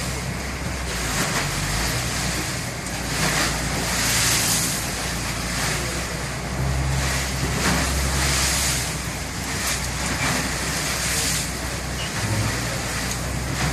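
Strong wind buffeting the microphone in gusts over rough sea rushing and splashing between the hulls of a tug and a pilot boat running side by side in a storm, with a low rumble from the boats' engines underneath.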